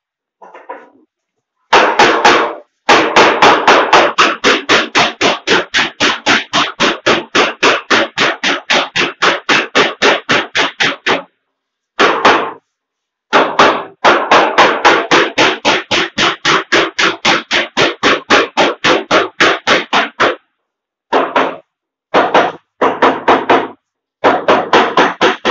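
Rapid hammer blows, about four a second, struck on the stone kitchen counter in long even runs with a few short pauses and shorter bursts near the end.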